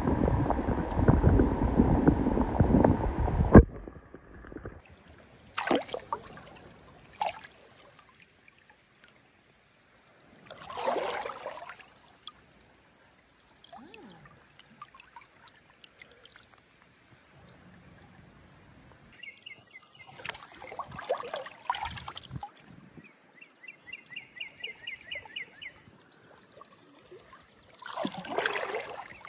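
Water rushing and splashing, loud and steady at first, then breaking off about three and a half seconds in. After that it is quieter, with scattered splashes and trickles and a short, rapid rattling sound near the end.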